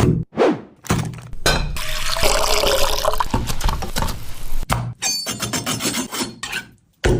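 Cooking sounds from a kitchen: utensils scraping, rubbing and clinking against a pan, with food and liquid being worked in it. The sound comes in several short stretches that start and stop abruptly.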